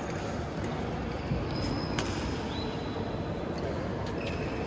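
Badminton rally: a couple of sharp racket strikes on the shuttlecock and brief high shoe squeaks on the court mat, over steady hall noise.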